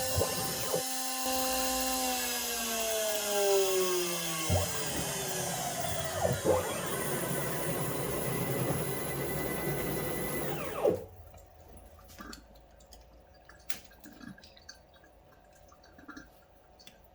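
Power tool motor running with a whine that falls in pitch as it slows, cutting off suddenly about eleven seconds in, followed by faint scattered clicks and taps.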